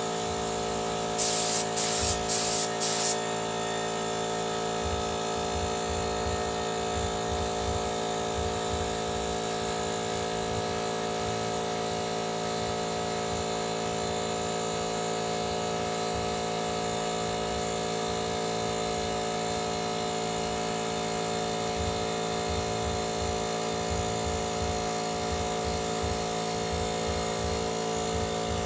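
Motomil 24-litre electric air compressor running steadily, its motor giving a constant whine over a pulsing pump. About a second in come four short, loud hisses of escaping air.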